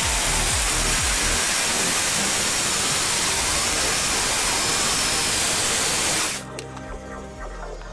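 Conventional electric drill with a ceramic-and-glass bit boring into a pane of glass held under water: a steady, loud hissing grind. It cuts off about six seconds in, leaving a much quieter stretch.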